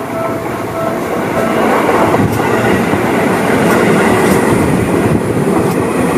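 Seibu 20000 series electric commuter train passing close by: a loud rush of wheels on rail with clacks over the rail joints. At the start a level-crossing bell rings twice a second, then it is drowned out as the train grows louder about a second and a half in.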